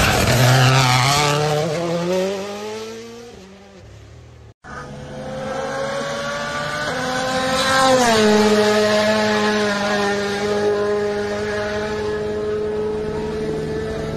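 A Toyota rally car's engine accelerating hard away, its pitch climbing as it fades into the distance. After a brief cut, a rally car engine rises as it approaches, drops sharply in pitch as it passes close by about eight seconds in, then holds a steady note.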